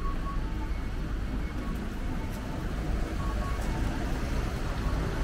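Outdoor street ambience: a steady low rumble of road traffic, with faint short high tones now and then.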